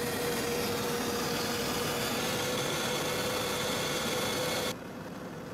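Steady helicopter cabin noise in flight: a loud rushing drone with a thin steady whine in it. About three-quarters of the way through it drops to a quieter, plainer hiss.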